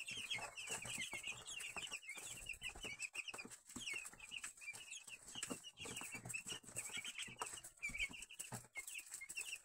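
A brooder full of young chicks peeping, many short high chirps overlapping without a break, with scattered light clicks and a faint steady high whine underneath.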